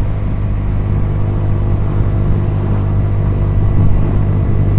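Honda CBR125's single-cylinder four-stroke engine running at a steady speed while riding, with a low rumble.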